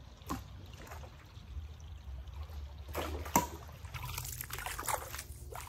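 Shallow creek water trickling, with a few sharp splashes from wading, about a third of a second in and twice around three seconds in.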